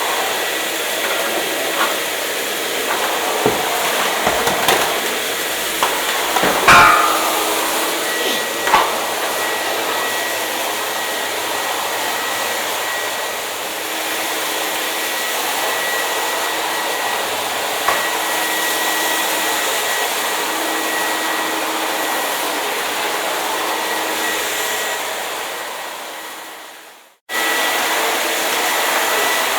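Hair dryer running steadily: an even rushing blow with a thin high whine, and a few light knocks in the first third. Near the end it fades away to nothing and then cuts straight back in at full strength.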